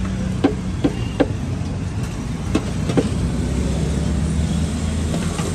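Steel ladle clinking sharply against a steel pot and bowl, five times in the first three seconds, over a steady low hum of road traffic.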